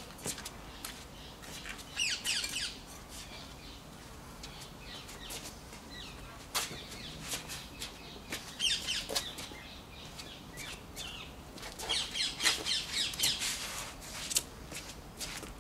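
Trainers stepping and scuffing on patio paving stones during footwork. Three short bursts of high, quick bird chirping come about two seconds in, near the middle and near the end, the last the loudest.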